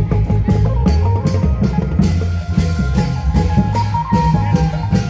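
Isan klong yao long-drum band playing festival dance music: a steady, driving beat of drum strokes with a melody line over it.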